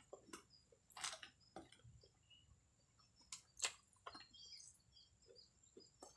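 Faint chewing while eating grilled toman fish with rice: irregular mouth clicks and smacks, loudest about a second in and again at about three and a half seconds.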